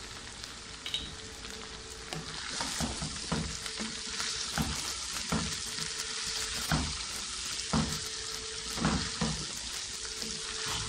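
Chopped okra frying in oil in a pan while being stirred with a wooden spatula: a steady sizzle that grows louder a couple of seconds in, with a knock or scrape of the spatula against the pan about once a second.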